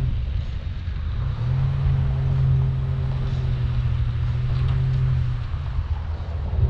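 Chevrolet Colorado ZR2 pickup's engine running at low trail speed under a rough low rumble. A steady low drone comes in about a second and a half in and fades out near five and a half seconds.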